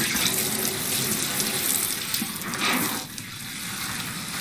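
Tap water running into a bathroom sink while a head of hair is washed under it, the flow growing quieter about three seconds in.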